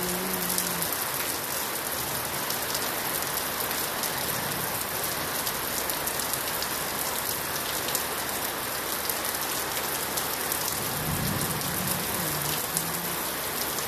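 Heavy rain falling steadily: a dense, even hiss of countless drops striking bare earth and foliage, with fine individual drop ticks throughout.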